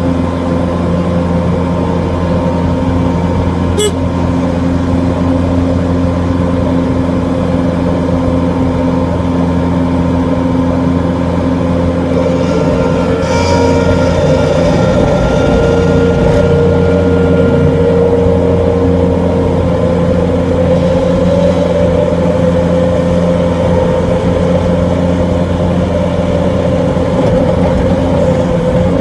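Bobcat skid-steer loader's engine running steadily, heard from inside the cab. About halfway through it gets slightly louder and a faint whine joins in. A single short click sounds about four seconds in.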